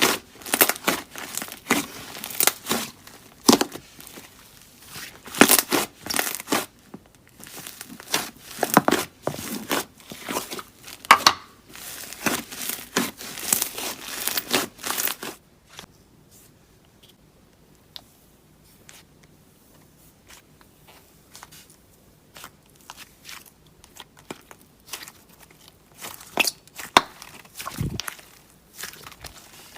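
Slime being worked: dense crackling and popping for about fifteen seconds, then only scattered soft clicks.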